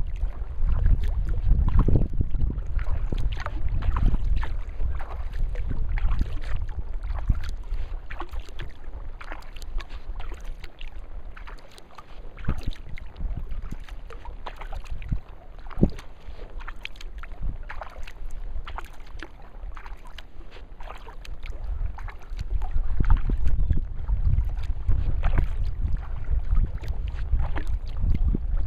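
Wind buffeting the microphone on a kayak, a low gusty rumble that eases off around the middle and picks up again near the end, with frequent small splashes and drips of water around the kayak.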